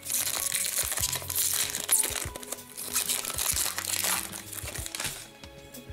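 Foil wrapper of an Upper Deck Series Two hockey card pack crinkling as it is pulled open by hand, dying away about five seconds in.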